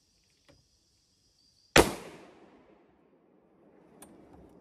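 A single hunting-rifle shot fired at a doe, a sharp crack about two seconds in followed by a rolling echo that dies away over about a second. A steady high insect drone stops at the shot.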